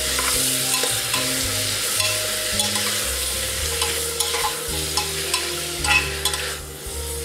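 Chopped tomatoes, carrot and ginger sizzling in melted butter in an aluminium pressure cooker while being stirred with a spatula. The spatula scrapes and clicks against the pot.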